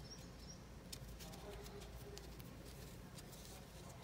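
Faint scratching and light clicks of a metal crochet hook pulling cotton yarn through stitches, over a low steady hum.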